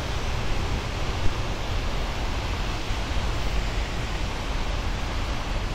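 Steady rushing outdoor noise with a heavy, fluttering low rumble, the mix of wind and city background picked up by an action camera's microphone.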